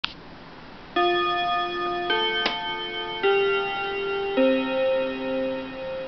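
Seiko PT201S radio-controlled program chime clock playing its electronic chime through its built-in speaker, set off by a button press: a click, then four bell-like notes about a second apart, each ringing on into the next. A sharp click sounds about two and a half seconds in.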